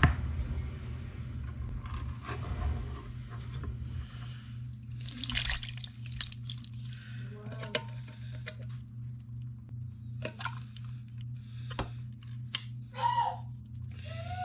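Pineapple chunks and juice poured from a can onto a ham in a slow cooker, with wet plops and splashing in bursts, over a steady low hum.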